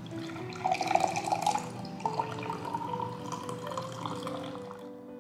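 Freshly steeped chamomile and mint tea poured from a glass jug through a small mesh strainer into a glass mug: liquid splashing and trickling, loudest in the first second and a half, stopping about five seconds in.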